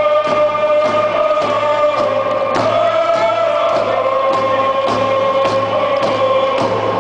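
A group of voices singing a Native canoe family song in unison over a steady hand-drum beat, about two beats a second. The held melody steps down in pitch about three to four seconds in.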